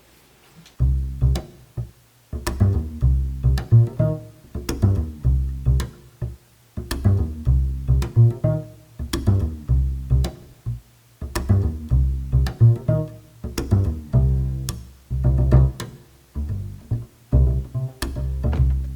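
Rhythmic instrumental background music with a strong low bass line and regular beats, starting about a second in.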